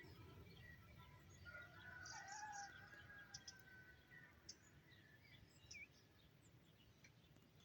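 Faint birdsong: a few drawn-out whistled notes in the first few seconds, then scattered short chirps, over a quiet background.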